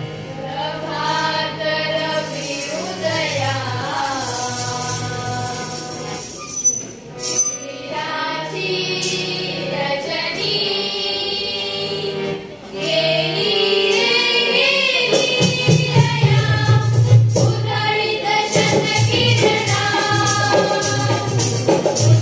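A group of schoolgirls singing a Hindi patriotic song (deshbhakti geet) together, accompanied by tabla and harmonium. The music gets louder about halfway through, with stronger tabla strokes.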